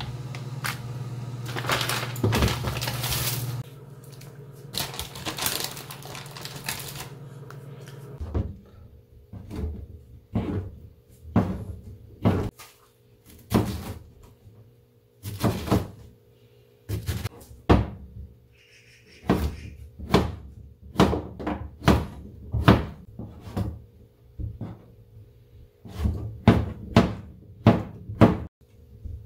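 Water boiling hard in a pan, with a steady low hum under it, for the first several seconds. Then a kitchen knife chops through enoki and king oyster mushrooms onto a plastic cutting board, about one sharp cut a second, coming quicker near the end.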